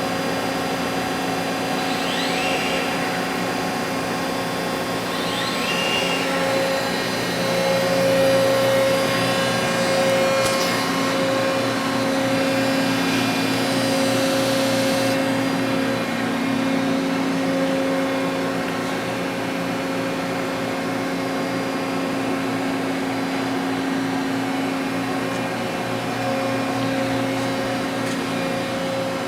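Ingersoll HMC-2500 five-axis gantry CNC machining center running: a steady machine hum with several constant tones. Brief rising whines come about two and five seconds in, and a high hiss begins around ten seconds and cuts off suddenly a few seconds later.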